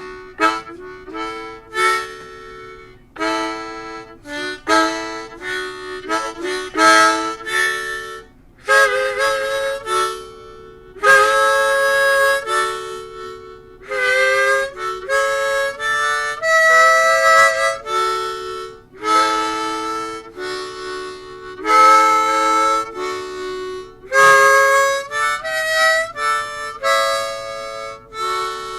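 Harmonica playing a blues tune: runs of short repeated notes and two-note chords, with longer held notes that bend in pitch.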